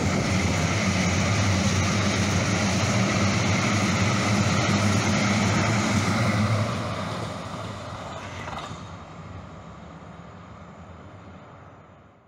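CTrain light-rail train running past along the platform: a steady rumble of wheels on rail with a low motor hum. About two-thirds of the way through, it begins to die away as the train draws off.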